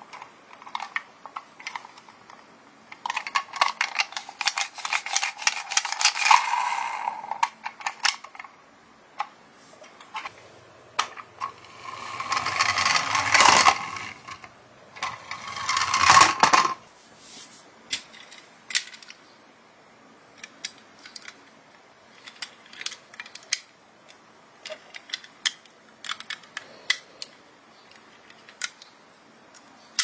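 Toy ambulance being handled: scattered clicks and light rattles of its plastic and metal body. A toy car's wheels roll down a wooden plank twice, near the middle, as swelling rushes with a low rumble.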